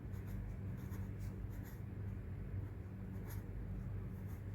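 Faint scratching strokes of a pen writing on paper, irregular and light, over a low steady hum.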